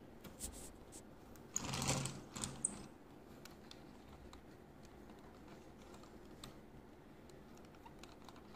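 Small model buses being handled and shifted on a tabletop: a few light clicks, then a brief scraping rustle with sharp clicks about two seconds in, then faint scattered ticks.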